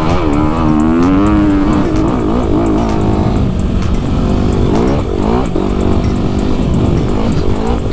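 2019 Honda CRF250RX dirt bike's single-cylinder four-stroke engine running under way, its pitch rising and falling repeatedly as the throttle is opened and closed.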